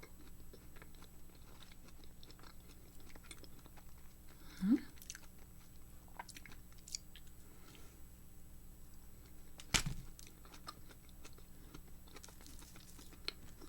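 A person chewing a soft filled cookie with the mouth close to the microphone, small wet clicks and crunches throughout. A short rising hum about five seconds in, and a sharp knock near ten seconds in.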